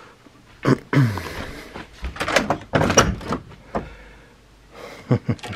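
A door being handled: a knock and a short falling creak about a second in, a cluster of knocks and rattles in the middle, and a couple of sharp clicks near the end.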